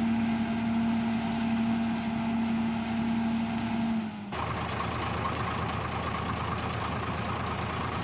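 Engine of a crawler sideboom pipelayer running with a steady hum. About four seconds in, the sound changes abruptly to a rougher, noisier engine run.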